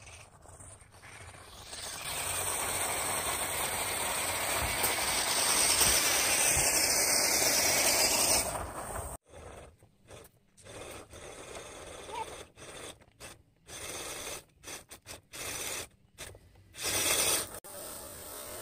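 Small electric radio-controlled crawler truck driving over a gravel pile, with loose stones crunching under its tyres and a steady noisy rush in the first half. After a break about nine seconds in, the sound comes in short uneven stretches as the truck climbs.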